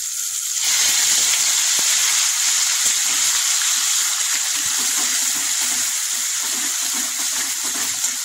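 Chopped tomato added to hot oil and spice pastes in a wok sets off a sudden burst of loud sizzling about half a second in. The sizzling eases slowly as it is stirred with a metal spatula.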